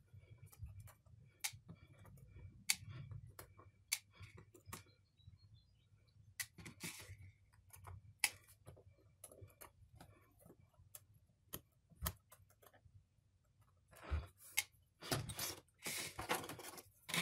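Scattered light clicks and taps of small screws, a screwdriver and a plastic parts bowl being handled on a work mat while a tablet is taken apart. Louder handling rustle comes in near the end.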